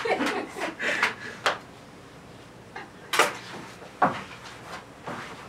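A short stretch of voices at the start, then a few sharp knocks and thumps on the stage floor: a small one about one and a half seconds in, the loudest about three seconds in and another about a second later.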